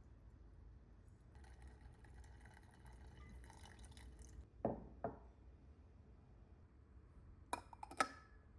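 Hibiscus tea poured into a glass for about three seconds, then two knocks and two short ringing glass clinks near the end.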